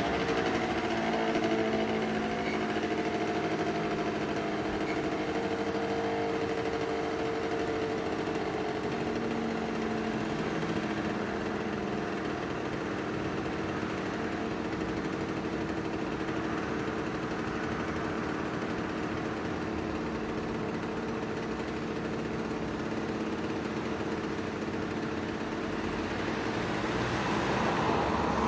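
City street traffic: car and motorcycle engines idling steadily over a general hum of street noise, with a vehicle starting to accelerate near the end.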